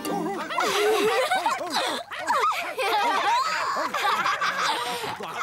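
Several cartoon dogs yapping and barking over one another, many short rising-and-falling yelps at different pitches.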